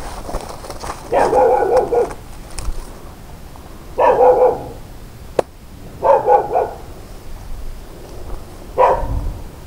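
An animal calling in four short bouts of quick, pitched barks or calls: the first about a second in, the last near the end. A single sharp click comes between the second and third bouts.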